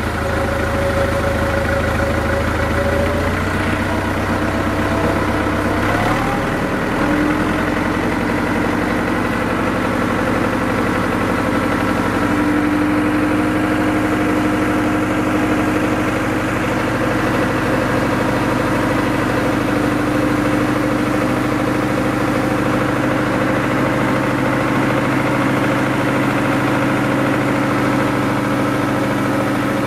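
An engine running steadily at idle, its pitch shifting a few seconds in and then holding even.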